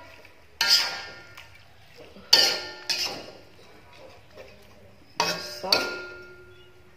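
Metal spatula stirring vegetables in a metal wok and knocking against its side: about five ringing clanks, each fading away over about a second.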